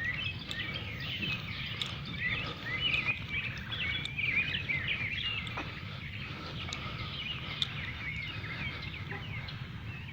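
Birds chirping, a steady run of many short calls, over a low steady rumble.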